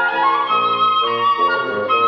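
Woodwind trio of flute, oboe and bassoon playing a contemporary classical chamber piece: several parts holding notes together, high flute over lower reed lines, the harmony changing about every half second, with a quick upward slide at the start.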